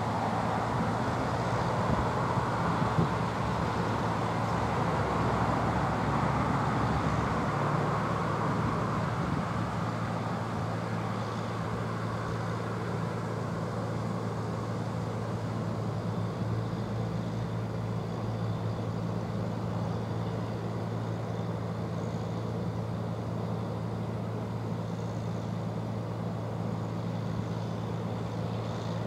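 Distant train approaching: a steady low hum over a broad rushing noise that eases after the first several seconds.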